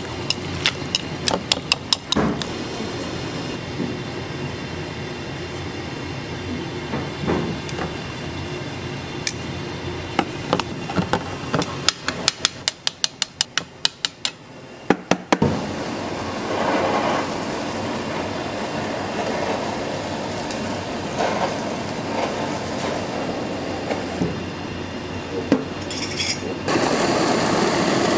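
Metal utensils click and clink against a bowl in quick runs over steady kitchen background noise. Near the end a handheld kitchen blowtorch is lit and hisses steadily.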